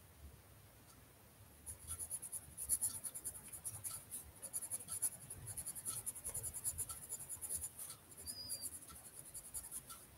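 Pencil scratching on paper in quick, fast strokes as words are handwritten, starting about a second and a half in, with a brief pause near the end before the writing resumes.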